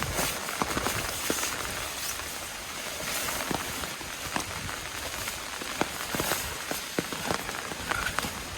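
Steady rain with scattered sharp taps of drops striking a surface.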